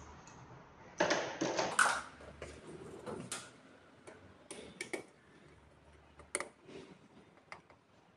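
Clicks and rattles of small plastic parts being handled at a lithium battery cabinet's terminal. A quick flurry comes about a second in, then single clicks every second or so.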